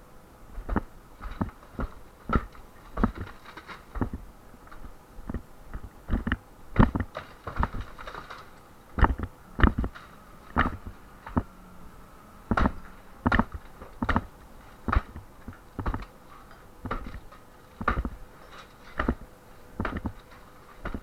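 Repeated hammer blows knocking down interior partition walls, coming about one to two a second at an uneven pace.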